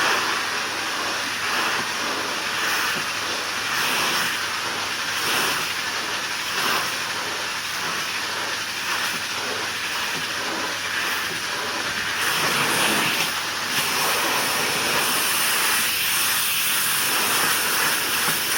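Pressure washer spray hitting wooden deck boards: a steady hiss of water that swells and eases slightly as the spray moves across the surface.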